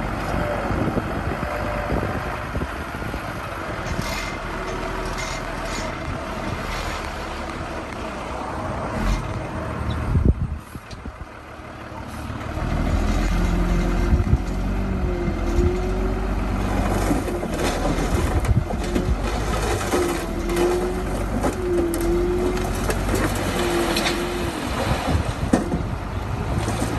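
Diesel engine of heavy earthmoving machinery running under work. It drops off briefly about ten seconds in, then comes back louder, with several short whining tones over it in the second half.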